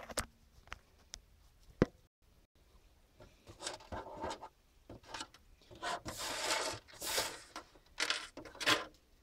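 Handling noise right at the microphone: a few clicks and knocks as the phone is set down, then repeated bursts of cloth rubbing and rustling against it.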